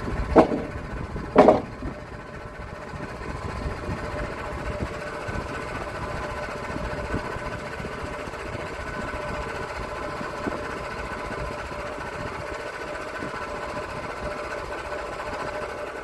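Portable sawmill running steadily with a mechanical drone and a faint steady whine, with two sharp knocks about half a second and a second and a half in.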